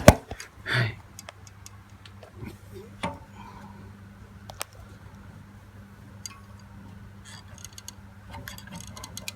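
Scattered light clicks and taps of hand tools being handled, with a sharp click at the start, over a steady low hum.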